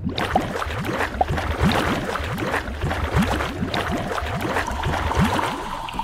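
Underwater bubbling sound effect: many quick bubbles, each a short rising blip, over a low rumble, with a steady tone coming in near the end.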